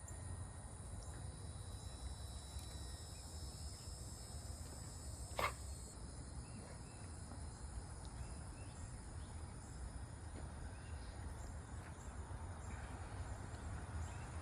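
Insects calling in a steady high-pitched drone, over a low outdoor rumble, with one sharp click about five seconds in.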